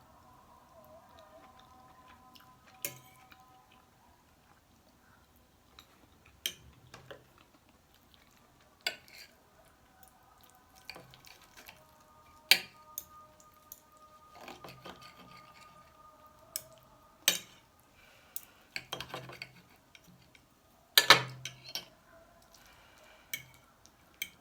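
Cutlery and dishes clinking in scattered sharp knocks, about a dozen of them, with the loudest cluster near the end.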